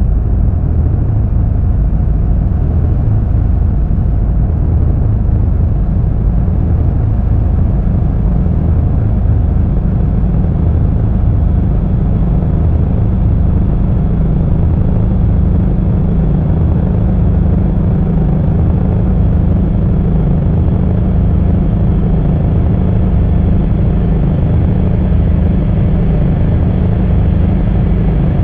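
Dark ambient background music: a steady low drone with sustained deep tones that swell a little about ten seconds in.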